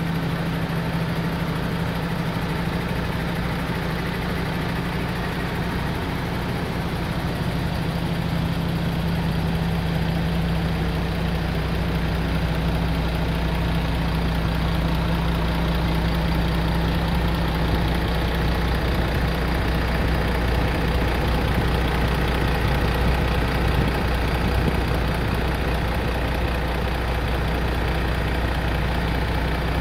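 MAN truck's diesel engine idling steadily.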